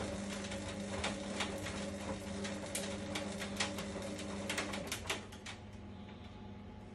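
A 2014 Indesit washer dryer running: a steady mechanical hum with irregular sharp clicks and rattles over it. The hum cuts out about five seconds in and the clicking stops just after.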